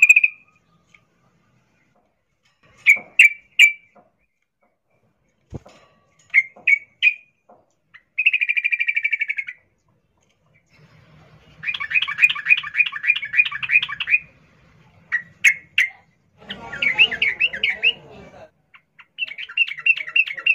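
Female yellow-vented bulbul (trucukan) giving its rolling breeding call, the sound of a hen in heat calling to males: short chirps in twos and threes alternating with fast rattling trills of one to two and a half seconds, the longest in the middle.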